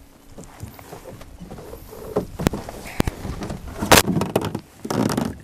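Handling noise from fighting a hooked trout aboard a small boat: scattered knocks and rubbing, with sharp clicks about two and a half and three seconds in, then two louder noisy bursts near four and five seconds in.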